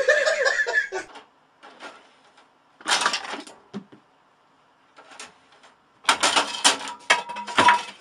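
A person laughing, fading out about a second in, then bursts of rattling, clattering clicks, one about three seconds in and a longer run near the end.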